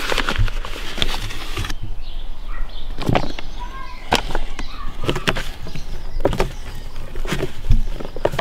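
Hands working raw fish pieces through flour in a plastic tub, dredging them for frying: rustling, with a sharp knock or rustle about once a second.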